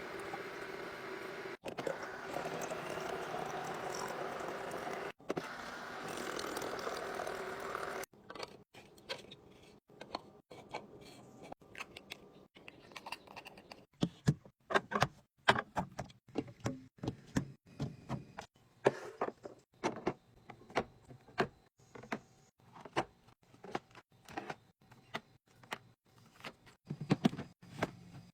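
Irregular light clinks and knocks of containers being handled and set down on shelves, denser and louder in the second half. Before them comes a stretch of steady background hum broken by abrupt cuts.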